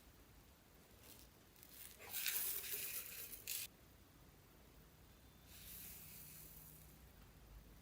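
Slime being squeezed and stretched by hand: a burst of sticky crackling and squishing for about a second and a half, then a fainter, softer squish a few seconds later.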